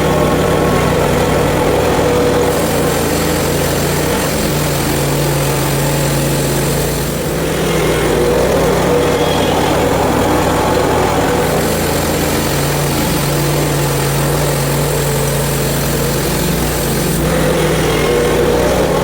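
Portable bandsaw mill's engine running steadily as the mill saws through a log.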